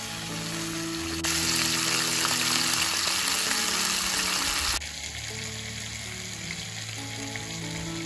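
Food sizzling in hot oil, over soft background music. A louder, hissier burst of sizzling starts abruptly about a second in and cuts off just before five seconds.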